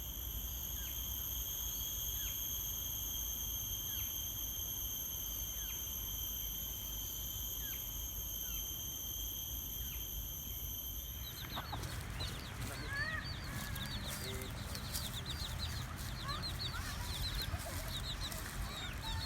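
Tropical garden ambience: a steady high-pitched insect drone with a short falling call repeating about every one and a half seconds. About twelve seconds in, it cuts to a busy chorus of birds chirping rapidly, with fowl clucking and calling.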